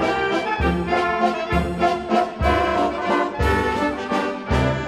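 Brass band playing a waltz: sustained brass chords and melody over a low bass note that comes about once a second.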